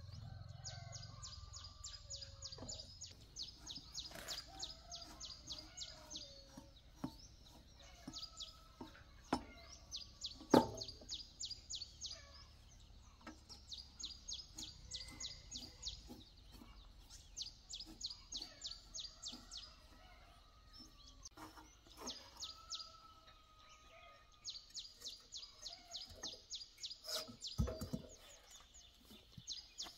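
A bird calling in repeated quick chirping runs of about two seconds, roughly six or seven chirps a second, every few seconds. A few sharp metallic clinks come from hand tools on the tractor engine, the loudest about ten seconds in.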